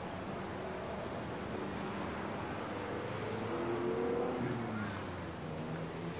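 City street traffic noise: a steady hum of vehicles, with one engine growing a little louder around the middle.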